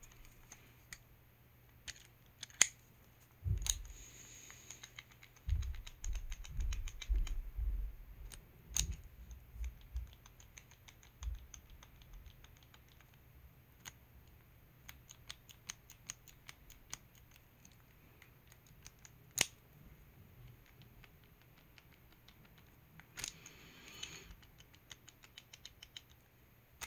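Scattered small clicks and light metal ticks of a steel bit-holder extension being fitted into a ratcheting screwdriver handle and wiggled, the loose extension knocking with play in its socket. A few dull handling bumps come between about 3 and 11 seconds in.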